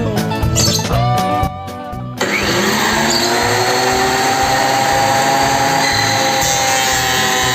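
Guitar music, then about two seconds in a Fujiyama PP9012 benchtop thickness planer's motor switches on, its whine rising quickly as it spins up and then running steady.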